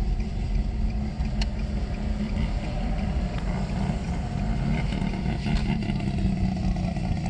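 Steady low rumble of a vehicle engine running, its pitch wavering slightly.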